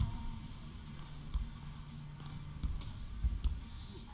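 Dull thumps of a footvolley ball being kicked and struck by the players: a loud one right at the start, then three or four softer ones spread over the next few seconds.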